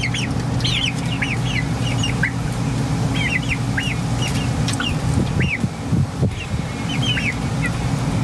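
Young chickens about seven weeks old cheeping: a stream of short, high calls, each arching up and down, sometimes several a second. A steady low hum runs underneath.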